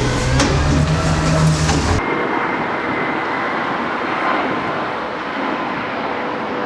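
Cummins Westport ISL-G natural-gas engine of a Blue Bird TX4 bus running with a low hum that rises briefly in pitch. About two seconds in, the sound changes abruptly to a steady rushing rattle with no low engine hum.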